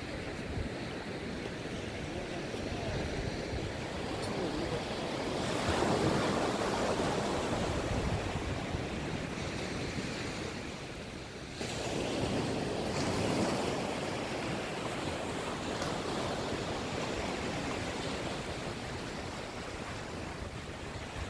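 Small surf breaking and washing up a sandy beach, a steady wash that swells louder twice, about six and thirteen seconds in.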